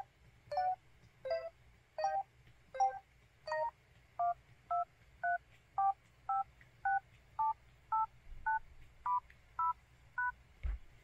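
LG-SV850 mobile phone playing dial-tone-style beeps, each a short mix of two notes. First come about six fuller beeps three-quarters of a second apart, then a quicker run of about a dozen beeps, nearly two a second, that change in pitch. A low thump comes near the end.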